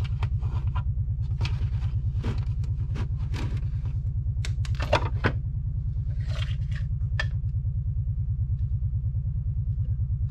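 Clicks and knocks of plastic ice maker parts being handled, including a small cluster about halfway through. Under them runs a steady low machine hum with a fast even pulse.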